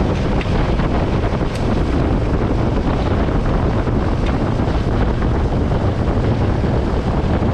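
Wind buffeting the microphone: a loud, steady rumble with hiss.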